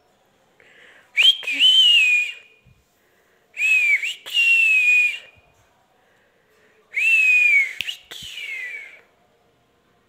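Alexandrine parakeet giving three long, loud whistled calls a couple of seconds apart, each falling slightly in pitch at the end, with a few sharp clicks among them.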